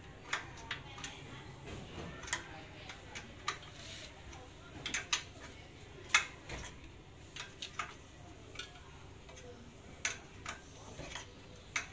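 Irregular metallic clicks and clinks of hand tools and small metal parts as fittings on a semi-electric stacker's hydraulic pump motor are worked by hand, the loudest knock about six seconds in.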